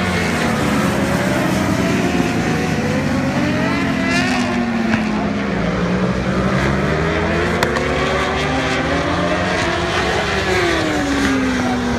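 World Superbike racing motorcycles running on track at speed. Several engine notes overlap and rise and fall in pitch as the bikes accelerate, shift and pass.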